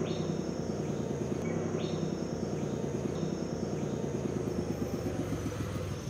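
Bus engine running with a steady low hum, while crickets chirp in the background.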